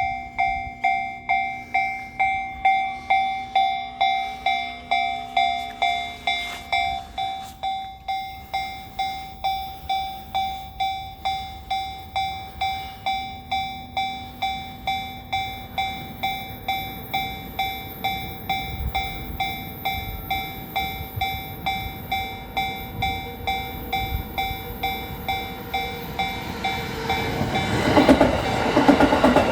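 Japanese railway level-crossing warning bell ringing in a steady, evenly repeating ding. A train approaches from about halfway, its rumble growing until it passes loudly with wheel clatter near the end.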